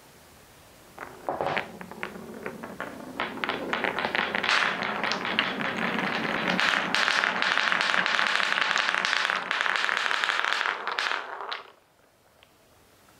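Painted wooden balls rolling down a wooden marble-run track and clacking against each other and the wood: a few scattered clicks about a second in, building into a dense, steady clatter over a rolling rush, which cuts off suddenly near the end.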